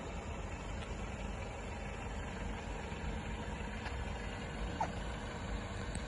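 Mercedes-Benz E250 sedan's engine idling, a steady low rumble, with a brief high chirp about five seconds in.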